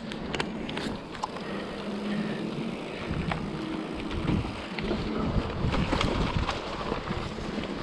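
Mountain bike riding down a rocky, stony trail: tyres rolling over loose stone, with many short clicks and knocks from the bike rattling, and wind rumbling on the microphone.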